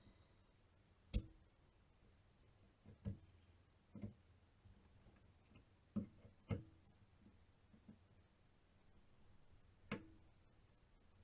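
A handful of sharp clicks and knocks at irregular intervals, the loudest about a second in, from parts and hand tools being handled during work on the wiper mechanism.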